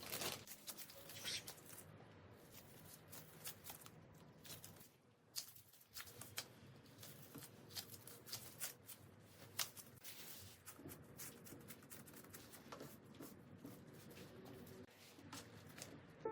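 Faint food-preparation handling sounds: light rustling and scraping with many irregular small clicks.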